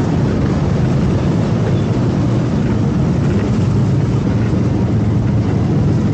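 Yamaha MT25's 250 cc parallel-twin engine running steadily while riding, mixed with wind and road noise on the on-board microphone.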